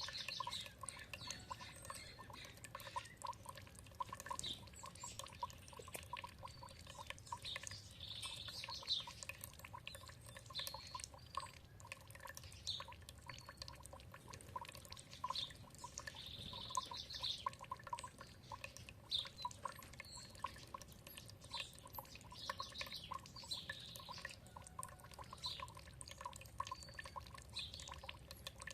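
Water dripping and trickling in quick, irregular drops, with small songbirds calling in short chirps now and then, in brief clusters about 8 and 16 seconds in.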